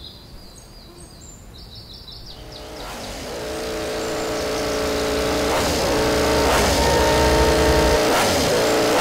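Birds chirping, then a steady engine drone that fades in at about two and a half seconds and grows steadily louder through the rest.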